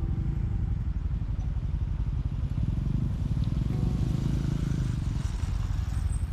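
Honda CT125 motorcycle's single-cylinder engine running while under way, a steady low rumble.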